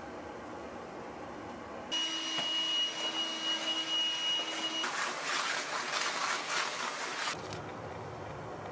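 Cordless stick vacuum cleaner switching on about two seconds in, running with a steady high whine for about three seconds. It is followed by a louder rushing hiss for a couple of seconds that then drops back to low room noise.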